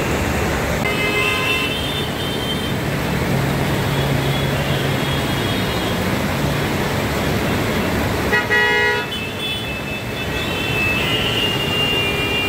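Steady noise of heavy rain and traffic on a flooded road, with vehicle horns honking: short toots about a second in, one loud horn blast a little past eight seconds in, and more horns near the end. A low engine hum runs underneath in the middle.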